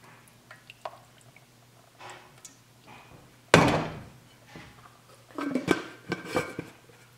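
Chicken bone broth poured from a glass jar into a steel saucepan, with faint trickling and small clicks, then a single sharp clunk of the glass jar about three and a half seconds in. Near the end, a short clatter and scrape as a plastic lid is put back on the jar.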